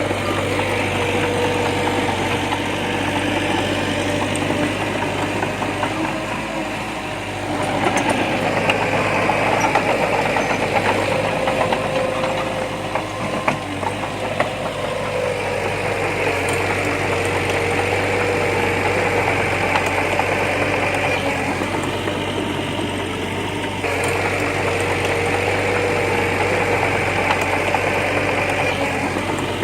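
Heavy bulldozer's diesel engine running steadily under working load, its note stepping up about a third of the way in and again near the end, with a few sharp knocks about halfway through.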